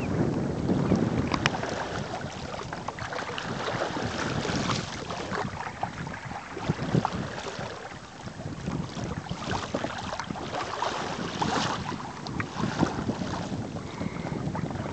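Water lapping and splashing against the hull of a sailing kayak under way through small waves, with many short slaps, over wind buffeting the microphone.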